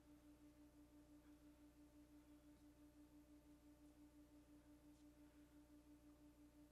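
Near silence, holding only a faint, steady low tone that wavers in level about six or seven times a second, with fainter higher tones above it.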